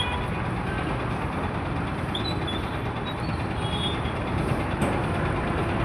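Steady road traffic noise: a continuous rumble of passing vehicles, with a few brief faint high chirps.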